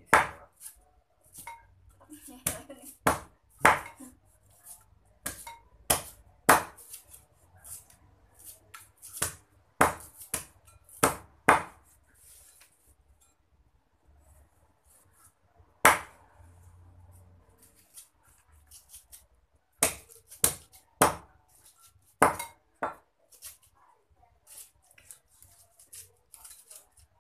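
Cleaver chopping raw chicken on a wooden chopping block: sharp, irregular chops in quick runs, with a pause of a few seconds midway and fewer strokes near the end.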